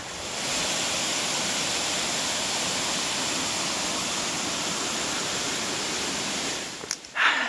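Waterfall rushing down rock ledges, a steady full roar of falling water that fades out shortly before the end. A brief louder sound follows near the very end.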